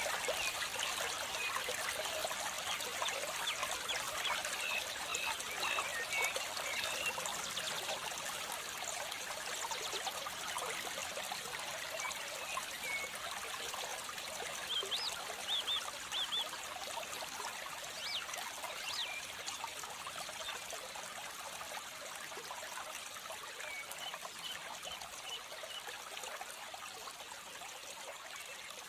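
Water trickling steadily like a small stream, easing off gradually toward the end, with small birds giving brief runs of high chirps now and then.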